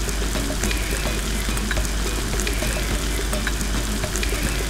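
Chicken and vegetables sizzling steadily as they stir-fry in a wok, with scattered small ticks and crackles as the ladle stirs them.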